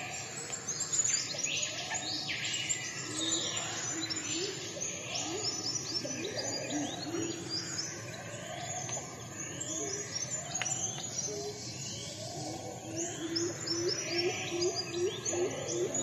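Several birds chirping and calling at once, a busy chorus of overlapping short whistles and falling chirps. Near the end, a quick run of low, evenly spaced notes.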